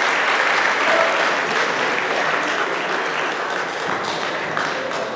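Crowd applauding steadily, easing off slowly.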